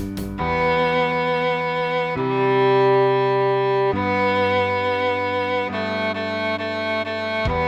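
Cello playing a slow melody of long held bowed notes, moving to a new note roughly every two seconds.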